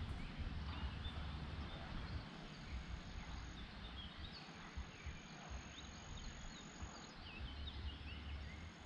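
Wind buffeting the microphone in gusts over a steady outdoor hiss, with small birds chirping at intervals in the background.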